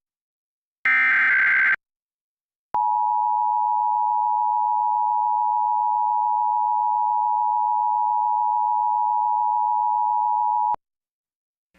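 The last burst of an Emergency Alert System digital (SAME) header, a harsh high data screech about a second long. After a short gap comes the EAS two-tone attention signal, a steady dual tone that holds for about eight seconds and cuts off abruptly.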